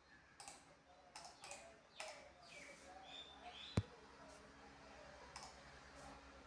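Faint scattered clicks and taps over a low steady hum, with one sharp click a little past halfway and a few short high chirps just before it.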